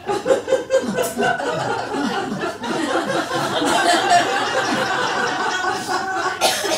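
Audience laughing and chuckling, many voices overlapping.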